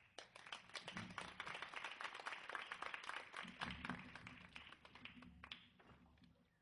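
Audience applause: many people clapping at once, steady and dense, then dying away near the end.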